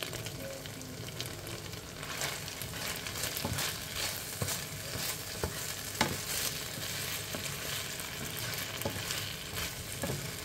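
Chicken and onions sizzling in a thickened oyster sauce in a non-stick frying pan, stirred with a wooden spatula that scrapes and taps the pan now and then.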